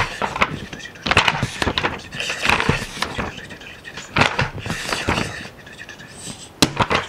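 Pages of a paper book being turned quickly by hand, a sharp paper swish every second or so.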